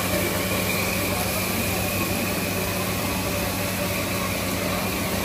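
Steady machine hum with a low drone and a constant hiss over it.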